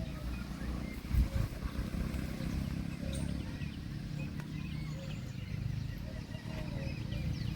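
A steady low rumble with many faint, short high chirps over it.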